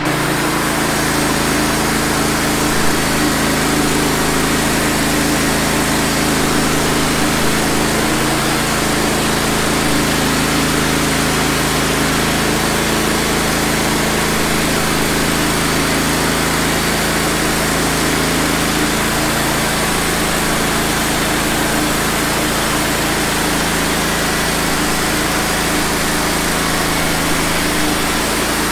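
Wood-Mizer LT15 band sawmill running steadily at speed while its band blade is pushed through a log: a constant engine drone with the noise of the cut over it. The sound comes up at the start and then holds even.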